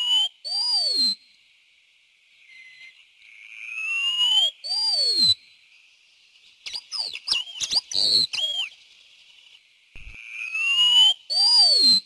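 Wallcreeper singing: thin whistled phrases that rise slowly in pitch and end with a higher note that falls away, repeated three times about five seconds apart. In the middle comes a quick jumble of short, sharp notes.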